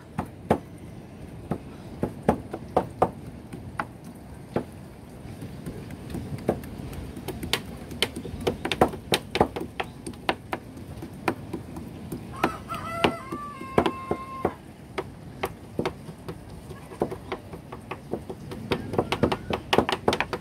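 Kitchen knife chopping raw tuna on a plastic cutting board: sharp, irregular knocks. About twelve seconds in, a rooster crows once for about two seconds.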